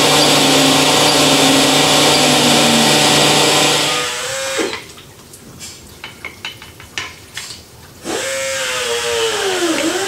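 Cylinder honing machine working in the bores of a G16E engine block, a loud steady machine noise with a low hum, which stops about four seconds in. A few light clicks follow, and for the last two seconds a tone comes in that wavers and dips in pitch.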